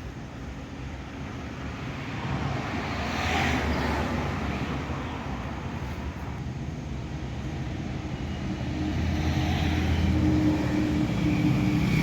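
A car on the move: engine and road noise, swelling about three seconds in and again louder from about nine seconds, with a steady hum coming in near the end.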